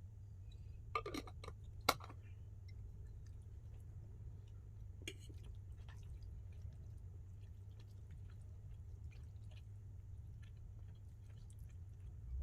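A person quietly chewing shirataki pasta, with faint scattered ticks and a few sharp clicks, the loudest about two seconds in, over a low steady hum.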